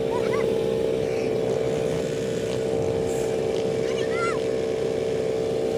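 Quad bike (ATV) engines running steadily at a constant pitch, with a few short calls from voices.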